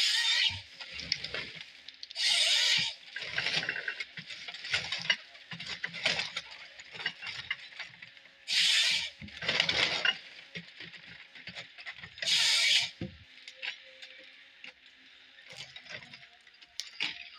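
John Deere 1070G harvester processing a pine stem: about five short, loud bursts of its harvester head's chain saw cutting through the log, with knocks and cracking from the stem and limbs between the cuts over a faint machine hum.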